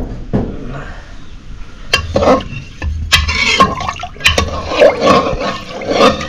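Water sloshing in an aluminium pot as rice soaking in it is stirred with a ladle. The ladle clicks now and then against the pot, and the sloshing gets busier about two seconds in.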